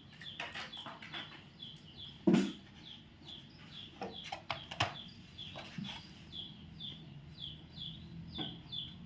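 Chicks peeping: short, high, falling chirps about two a second, with a few sharp knocks of toys being handled, the loudest about two seconds in.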